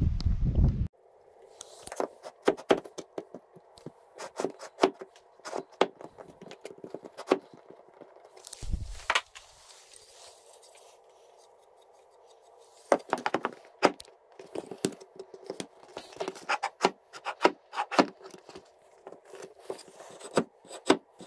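Irregular light clicks, knocks and scrapes of handling, with a quieter pause about halfway through; a moment of wind on the microphone opens it.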